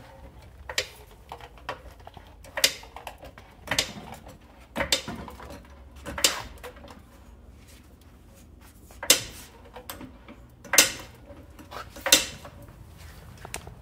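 Car jack being pumped to lift the car at the side jack point, a metallic clink with each stroke of the handle: about nine clinks roughly a second apart, with a pause of a few seconds midway.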